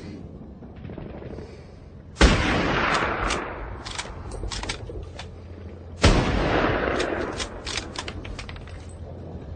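Two heavy gunshots about four seconds apart, each with a long echoing tail, and scattered sharp clicks in between.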